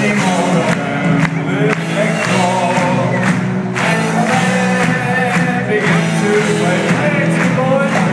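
Live rock band playing with singing over it, heard from the audience in a large hall, with crowd noise mixed in. The bass is thin.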